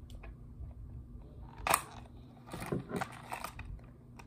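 Lure packaging being handled and worked open: a sharp click about a second and a half in, then a few smaller clicks and rustles.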